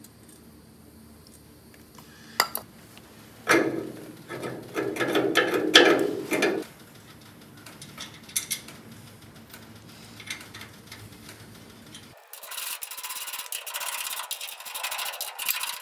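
Hand-fitted metal parts rubbing and scraping against the painted steel chassis, with a sharp click a couple of seconds in and the loudest scraping stretch lasting about three seconds. Near the end the sound switches abruptly to a thin hiss with rapid ticks.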